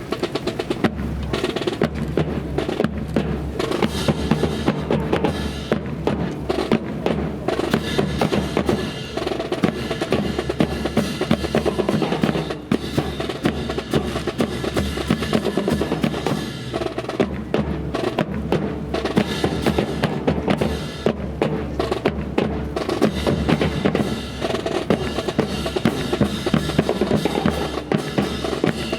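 Drum-heavy music: bass drum and snare keep up a dense, steady beat with rolls.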